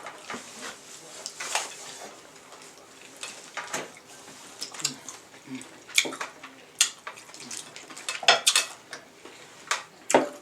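King crab leg shells being cracked and picked apart at the table, a run of irregular sharp cracks and clicks with utensils clinking, the loudest about six and eight seconds in.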